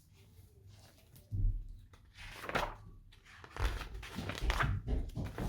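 Picture book being handled and opened: a low thump a little over a second in, then paper rustling and repeated low bumps in the second half.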